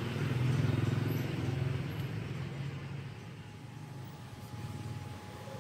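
Low engine rumble of passing road traffic, swelling over the first two seconds and then easing.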